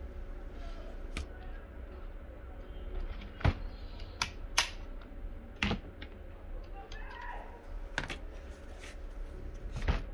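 Scattered sharp plastic clicks and knocks, about eight of them, from a Dell Latitude E7450 laptop being turned over and its bottom cover handled, over a low steady hum.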